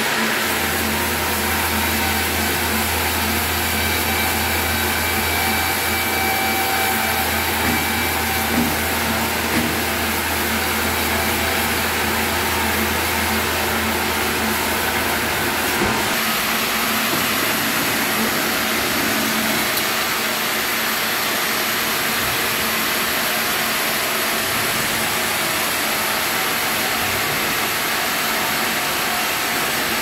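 Breakdown band saw and log carriage running, a loud steady whirring machine noise, with a low hum under it that stops about halfway through.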